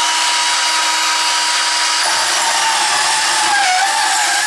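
Milwaukee battery-powered mini band saw starting up and cutting through 1/2-inch EMT steel conduit. The motor gives a steady whine, and about two seconds in the blade bites into the tube and the whine sags and wavers under the load.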